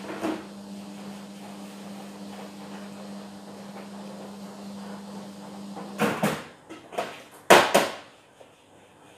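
Kitchenware being handled and set down at a sink: a cluster of sharp knocks and clatters near the end, over a steady low hum that stops just before them.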